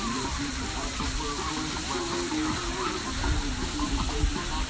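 A steady hiss of outdoor background noise, with faint voices underneath.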